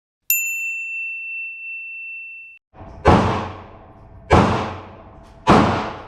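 Three pistol shots from a .40-calibre Glock, about a second and a quarter apart, each a sharp crack that rings away in the range. They are preceded by a steady high-pitched beep that lasts about two seconds and cuts off suddenly.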